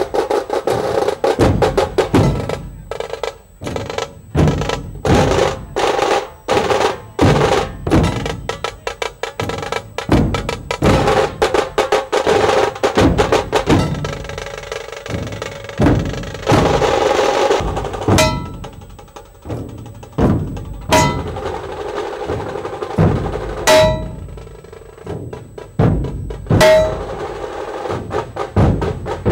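Dhol tasha drumming: dhol barrel drums beaten with tasha drums rattling in fast rolls. About two-thirds through, the dense drumming gives way to single strokes on a large gong every three seconds or so, each ringing on.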